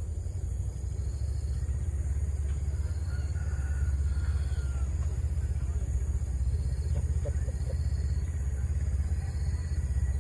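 Steady low rumble, with a continuous high insect drone and a pulsing trill over it.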